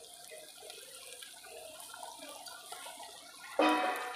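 Low sizzle and hiss of a spiced tomato-onion gravy cooking in a steel pot over a wood fire as broken pieces of rotlo flatbread are tipped in. About three and a half seconds in, one sharp metallic clang with brief ringing as the steel bowl knocks against the pot.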